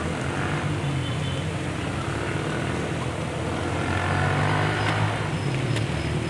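A motor vehicle engine running with a steady low drone, growing louder about four seconds in as if passing close by.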